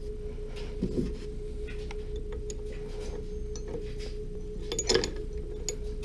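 Thin steel spanners clinking against each other and the lathe spindle as they are fitted and handled: a few short metallic clicks, the loudest about five seconds in, over a steady hum.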